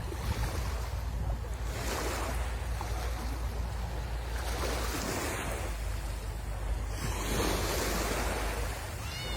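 Sea surf: waves breaking and washing up the shore, surging every few seconds, with wind rumbling on the microphone.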